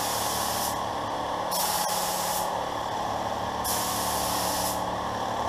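Pro-Tek 4000 HVLP gravity-feed spray gun laying down clear coat at 28 PSI, its air-and-paint hiss starting and stopping with each pass. The hiss comes three times, each burst about a second long, over a steady lower rushing noise.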